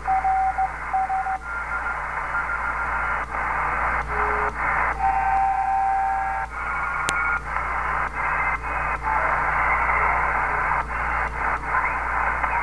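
Receiver audio from a Uniden Grant XL CB radio converted to the 20-meter ham band, being stepped up the band channel by channel: steady band hiss cut by brief dropouts at each step. Short Morse code (CW) beeps and steady whistling tones come and go as signals are passed. A low hum runs underneath, and there is one sharp click about seven seconds in.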